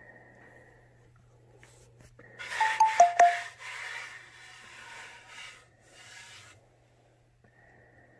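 A hand rubbing over a freshly sanded wooden panel, starting about two and a half seconds in as a loud brushing rub with a few short squeaks of skin on the smooth wood, then fading out about four seconds later. A low steady hum sits underneath.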